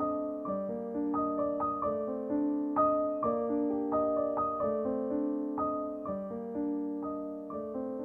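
Background piano music: a gentle run of single notes struck a few times a second over held chords.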